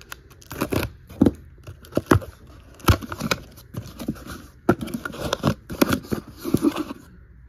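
A taped cardboard shipping case being opened by hand: irregular scrapes, cracks and rustles as the tape is slit and the flaps are pulled back, with a scatter of sharp snaps.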